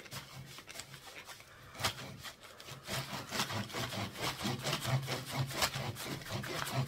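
A small hand saw rasping back and forth through a dry, compressed coconut-coir block. The strokes are quieter for the first two seconds, then faster and louder at about three strokes a second.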